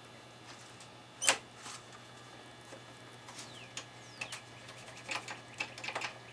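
A sharp click about a second in, then scattered light clicks and rustling as a hand works the front-panel controls of a Tektronix R7704 oscilloscope, over a faint steady hum. No cooling fan starts: the scope is not getting power.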